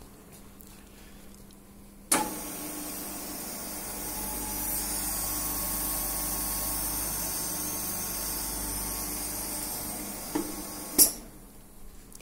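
Fimtec F125 end-milling machine running with a steady whirring hiss. It starts with a sharp clack about 2 s in and cuts off with another sharp clack near the end.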